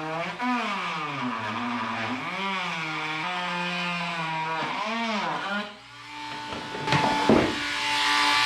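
A small motor whirring, its pitch rising and falling several times as it speeds up and slows down, then running steadier with a short rough burst near the end.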